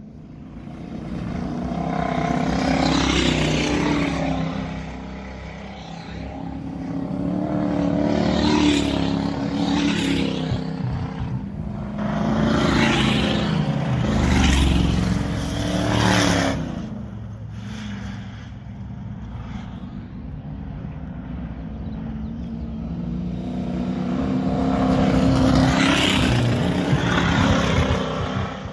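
Dirt-track race cars with Ford 302 small-block V8 engines pass one after another at full throttle. Each engine note swells and falls away as the car goes by, in several separate passes with quieter gaps between them.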